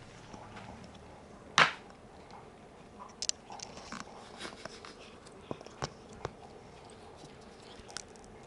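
A cat biting and chewing at cat grass: scattered small crunching clicks, with one sharp, much louder click about a second and a half in.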